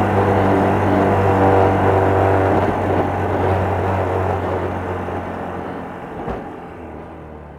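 Engine of a Honda Little Cub bored up to 88cc, a small single-cylinder four-stroke, running steadily and fading away over the second half.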